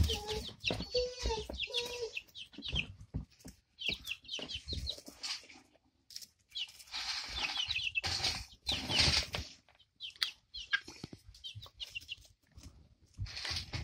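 Month-old chickens peeping in clusters of short, high chirps, with scuffling and pecking noises in straw bedding.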